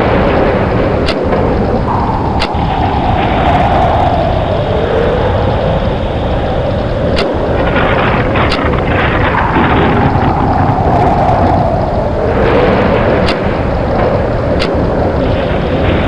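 Tornado sound effect: loud, continuous rushing wind over a deep rumble, with a howling tone that swells up and sinks back every several seconds. A few sharp ticks cut through it.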